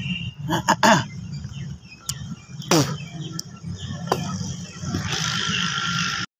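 Outdoor ambience on an empty railway platform: a steady low rumble, a few sharp knocks in the first second, a short sound falling in pitch about three seconds in, and a hiss building near the end.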